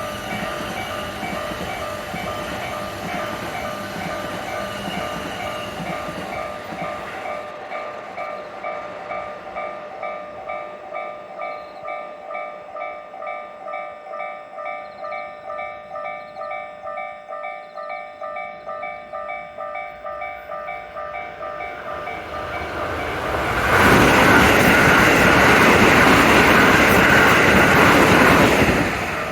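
Japanese level-crossing warning bells ringing in a steady, even pulse of about two strokes a second. About 23 seconds in, a train passes through the crossing for about five seconds, louder than the bells, and cuts off sharply as it clears.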